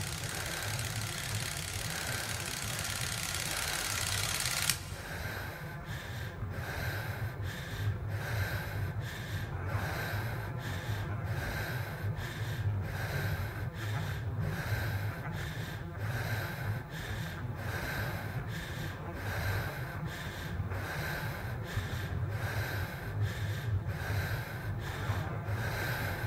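Film soundtrack: a steady low hum under a hiss that cuts off suddenly about five seconds in. Rhythmic breath-like puffs follow, about one or two a second.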